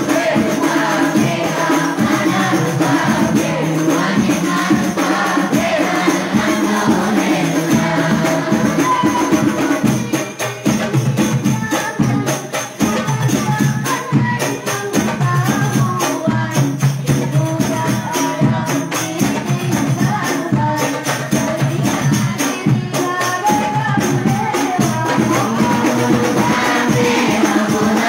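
Hadroh ensemble: rebana frame drums beating a steady, busy rhythm under a group of voices singing sholawat together.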